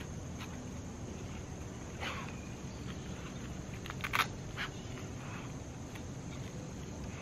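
A few brief rustles and scrapes as rubber dog boots are handled and fitted onto a puppy's paws, the loudest about four seconds in. A steady high insect drone runs underneath.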